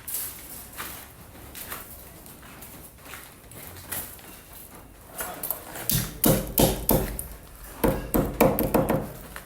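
Irregular knocks and thumps: a few faint clicks at first, then a quick run of loud, heavy knocks from about six seconds in.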